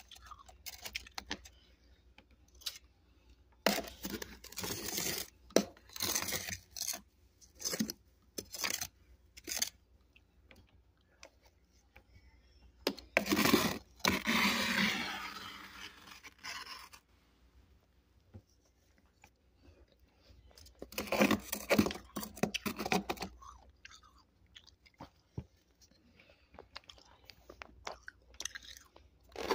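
Close-up crunching and chewing of freezer frost, in bursts of bites with quiet pauses between; the longest, densest burst comes about halfway through.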